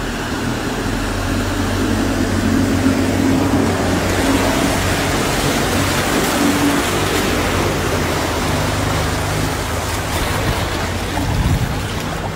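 Heavy rain with floodwater rushing fast along the pavement: a loud, steady hiss of running water, with a low hum underneath.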